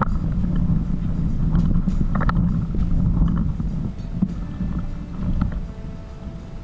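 Water rushing and slapping along a Sunfish sailboat's fibreglass hull as it sails, with wind buffeting the microphone and a few light knocks. It eases off a little after about four seconds.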